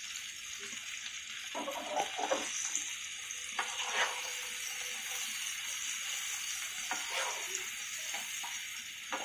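Chopped cluster beans sizzling in oil in a nonstick pan, with a steady hiss. A spatula scrapes and knocks against the pan in short strokes now and then as the beans are stirred.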